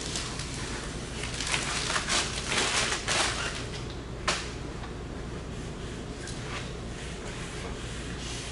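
Clear pre-mask application tape being peeled off a vinyl stripe decal on a painted car door: a crackling, rustling tear in several bursts over the first three seconds or so, then a single sharp click.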